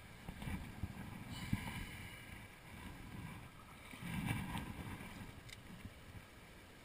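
Shallow mountain torrent running, with wind rumbling on the microphone in two stretches, about half a second in and again around four seconds in. A few light splashes and knocks near the start as a brown trout is let go from the hand into the shallows.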